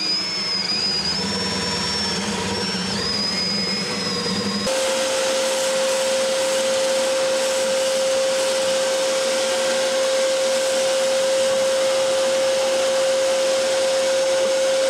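A DeWalt 18V cordless drill runs for the first few seconds, its bit boring into a wooden board, with a whine that wavers under load. It cuts off abruptly to a shop vacuum running steadily with one steady tone, sucking up sawdust through its ribbed hose.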